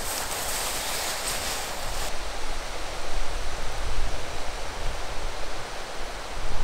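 Steady rushing of flowing river water, with an uneven low rumble underneath; the highest part of the hiss drops away suddenly about two seconds in.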